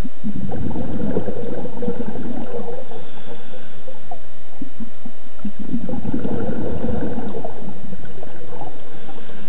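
Scuba diver exhaling through a regulator underwater: two long bursts of bubbling, each about three seconds, the second starting a little past halfway.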